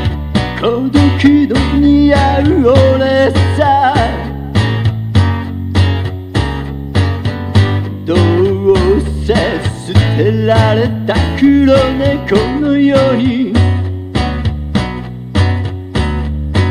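Japanese pop song playing, with a steady drum beat, bass and guitar, and a wavering lead melody line over them.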